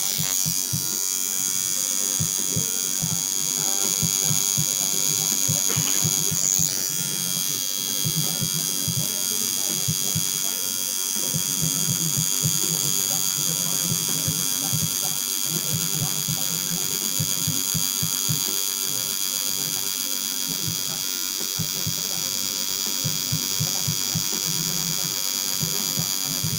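Electric tattoo machine buzzing steadily as it lines a tattoo, a high, even whine.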